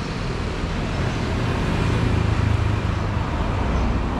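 Street traffic noise from motorbikes and cars on a city road, with a low engine rumble that swells about halfway through and then eases.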